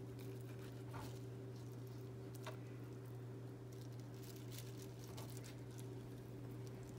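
Kitchen knife slicing through raw pigfish fillets on a plastic cutting board: faint, irregular soft taps and clicks of the blade meeting the board, a little sharper about a second in and again at two and a half seconds, over a steady low hum.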